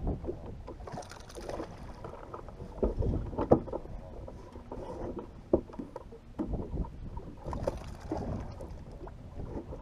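Small waves slapping and lapping against the hull of a bass boat, with scattered sharp knocks and thumps from movement on the deck.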